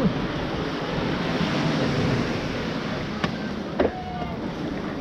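Small surf breaking and washing up a sand beach, a steady rushing hiss, with two sharp knocks about half a second apart a little past halfway through.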